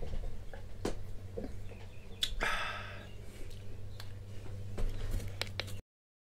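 A man drinking beer from a glass: a few small clicks of swallowing and the glass, then a breath out about two and a half seconds in, over a steady low hum. The sound cuts off to silence near the end.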